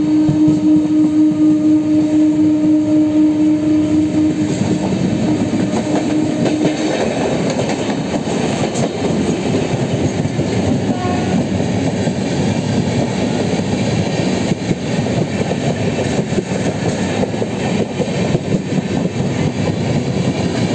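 Two trains running side by side at speed: a suburban EMU local and an Intercity Express, their wheels rumbling and clacking over rail joints, heard at close range from the EMU's open doorway. A long steady horn note sounds at the start and fades out about five to seven seconds in.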